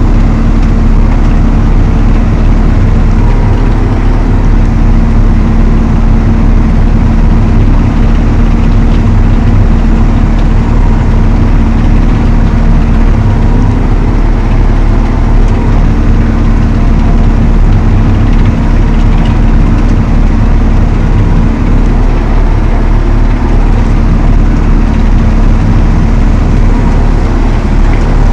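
Valtra T214 tractor's diesel engine running steadily under load, driving an Elho Tornado chain mower, as a loud, unchanging drone.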